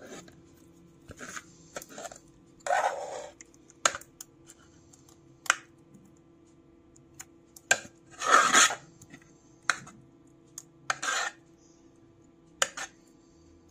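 Scattered clinks, taps and short scrapes of kitchen dishes and utensils, over a faint steady hum.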